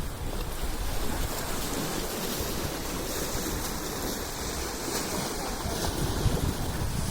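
Steady rushing noise of wind and water, without distinct events.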